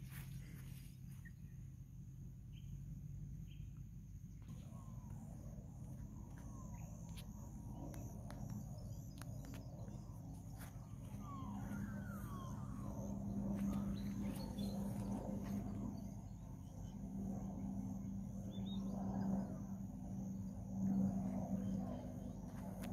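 Distant aircraft engine droning as a steady low hum that grows louder about halfway through, with birds chirping now and then.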